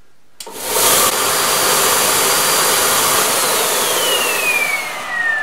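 Belt sander and a vacuum cleaner used as its dust extractor switched on together at a power strip: a click, then both motors run up to speed within about half a second and run steadily. From about halfway a whine falls steadily in pitch as a motor winds down.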